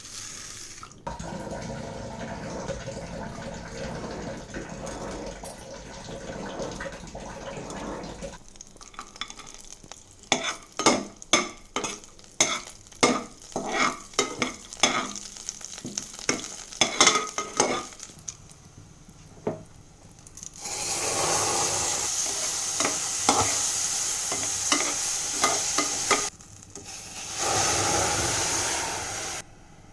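Cooking in a pan for pongal: a steady hiss at first, then a run of sharp spoon knocks and scrapes against the pan at about two a second. Loud sizzling follows in two stretches, the second one shorter.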